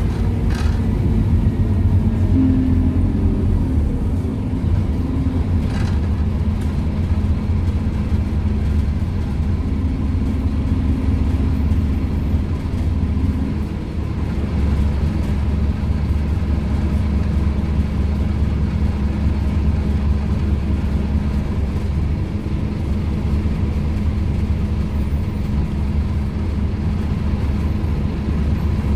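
Inside a moving Scania N230UD OmniCity double-decker bus: the Scania DC9 five-cylinder diesel and ZF 5HP500 automatic gearbox running under way with a steady low rumble. A faint humming tone comes in twice, and there are a couple of brief clicks from the interior.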